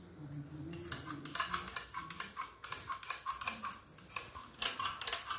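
Stainless steel kitchen press being worked by hand, its metal parts giving quick, irregular clicks, about three or four a second, starting about a second in.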